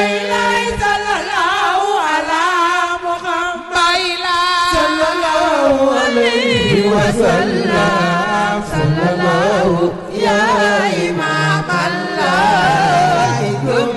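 Devotional chant: a voice singing a long, ornamented melody with wavering pitch over a steady low drone.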